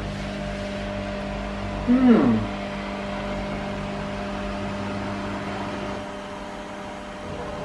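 Steady hum of a small electric motor in a kitchen appliance, with one short falling vocal 'mm' about two seconds in.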